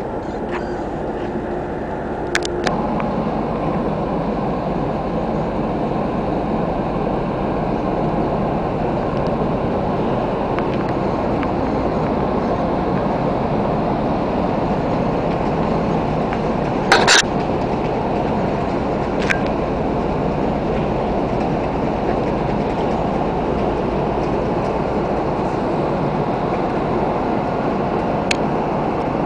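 Large ferry's engines running as a steady, loud, low drone while the ship comes into port. About 17 s in there is a single sharp clank.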